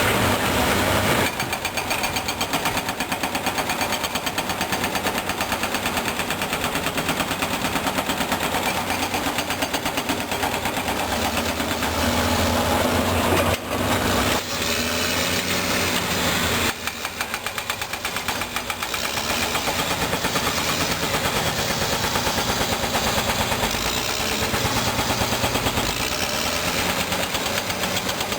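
Caterpillar D6R bulldozer's diesel engine working hard, with a rapid, steady clatter throughout.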